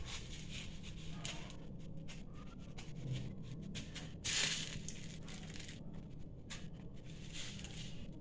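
Dry roasted vermicelli rustling and crunching as a cutlet is pressed and rolled in it by hand, with one louder crunch about four seconds in. A low steady hum runs underneath.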